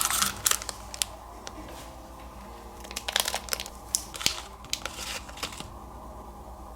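Crinkling and crackling of plastic packaging being handled and opened. It comes in two bouts, one briefly at the start and one lasting a couple of seconds mid-way.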